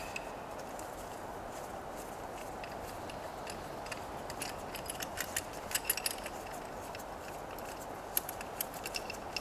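Light clicks and ticks of metal parts being handled: a piston ring compressor slid and pressed onto a Honda GX160 piston held on its con rod. The clicks come in scattered clusters, mostly in the middle and near the end, over a steady low room hiss.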